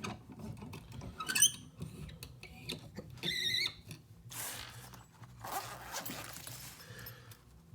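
A padlock being clamped into a bench vise: scattered clicks and rustles, with two short high squeaks, one about a second and a half in and another about three seconds in, and bursts of hissing noise later.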